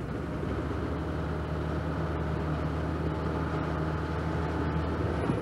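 A motor vehicle's engine running at a steady low hum, which stops shortly before the end.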